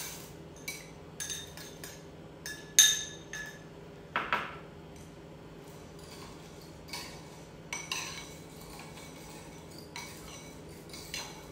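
Utensils and dishes clinking and knocking against a cooking pot in scattered, irregular strikes, the loudest about three and four seconds in, over a low steady hum.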